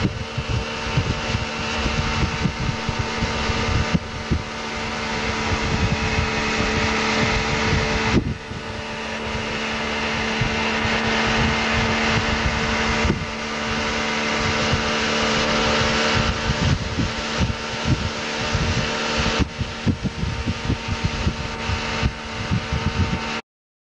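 Towboat's outboard motor running steadily at speed, with wind rushing over the microphone. The sound shifts abruptly several times and cuts off suddenly near the end.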